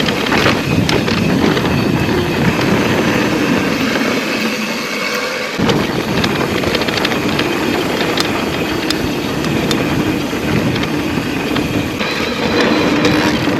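Electric mountain bike being ridden over a rough, stony trail: tyres rumbling and the bike rattling with many small knocks.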